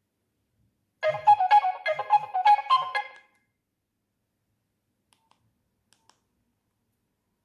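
Nokia 3120 mobile phone playing one of its ringtones through its small speaker: a short phrase of quick melodic notes lasting about two seconds, then stopping.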